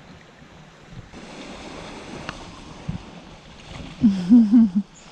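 Steady rush of wind and surf, with a couple of small knocks. About four seconds in, a person gives a short, loud hum whose pitch wavers up and down, while drinking fresh coconut milk from the shell.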